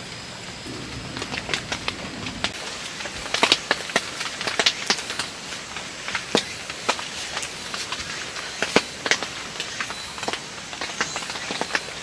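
Rain on a tent heard from inside: irregular sharp taps of single drops hitting the fabric over a soft steady hiss of rain.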